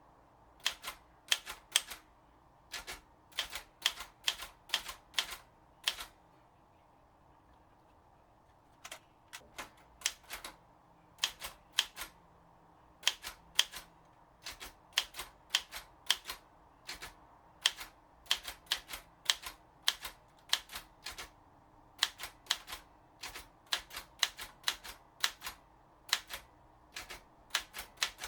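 Underwood 315 manual typewriter being typed on: irregular runs of sharp key strikes, a few a second, with a pause of about three seconds about a third of the way in.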